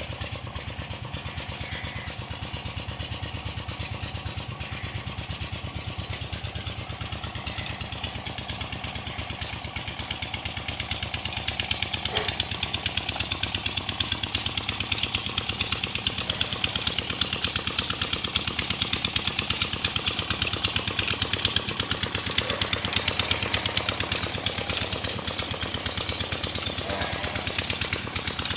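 A small engine or motor running steadily with a fast, even pulsing rattle; it gets louder about eleven seconds in and stays so.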